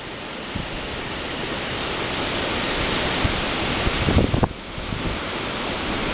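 Storm-front wind gusting hard, a dense rushing hiss that builds towards the middle. About four seconds in, strong gusts buffet the microphone with low rumbling blasts, then ease briefly. The gusts are estimated at 50–60 mph, from a bow-echo derecho front.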